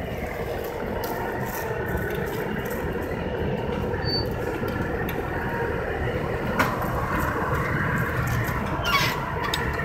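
John Deere compact tractor's engine running steadily as it drives slowly across brick paving. Two sharp knocks come about six and a half and nine seconds in.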